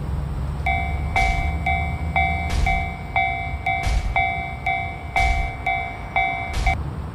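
Japanese railway level-crossing warning bell ringing its 'kan-kan' strokes about twice a second, stopping shortly before the end. Underneath is a passing train's low rumble, with a heavier thump about every second and a half.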